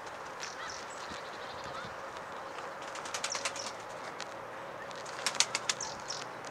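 Tumbler pigeons' wings flapping in two short bursts of quick claps, about three seconds in and again about five seconds in, over a steady faint outdoor hiss.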